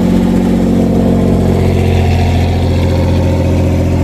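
1987 Pontiac Fiero GT's 2.8-litre V6 running steadily at idle. There is no exhaust leak now that the cracked catalytic converter has been replaced with a clamped-in high-flow pipe, and the exhaust sounds better.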